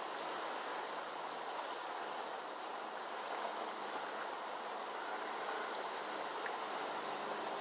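Steady rushing of a flooded creek's flowing water.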